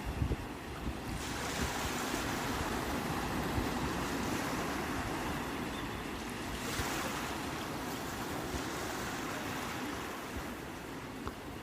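Sea waves washing onto the shore in a steady rush of surf, swelling about a second in and again a little past halfway.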